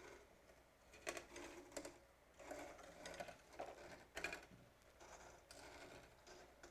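Singer 4423 sewing machine stitching faintly in several short, uneven bursts.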